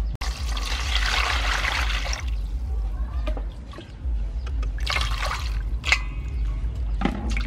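Water splashing and sloshing in a stainless-steel bowl as a whole fish and shrimp are washed by hand, with a longer rush of water in the first two seconds and a shorter splash about five seconds in, over a steady low hum.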